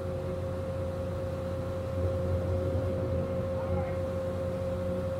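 Excavator's diesel engine running steadily as it lowers a septic tank slung on chains from its bucket, with a constant steady whine over the engine.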